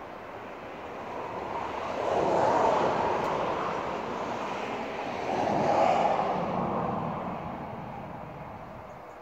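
Road traffic passing by: two vehicles go past one after the other, each a rushing sound that swells and fades over a couple of seconds.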